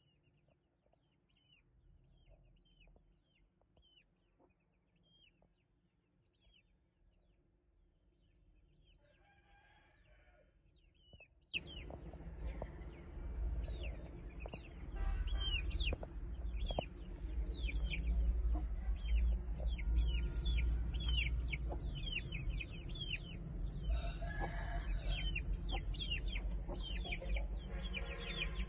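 Chickens: a run of short, high chirps falling in pitch, with clucking calls now and then, over a low rumble. Faint at first, the whole sound jumps much louder about eleven seconds in.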